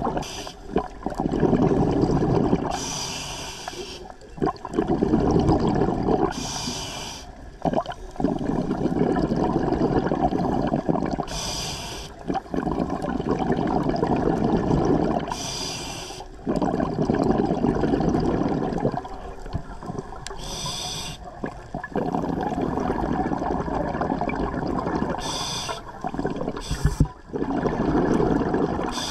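Scuba diver breathing through a regulator underwater, in a slow repeating cycle. Each breath is a short hissing inhale followed by a long, rumbling burble of exhaled bubbles lasting several seconds, about seven breaths in all.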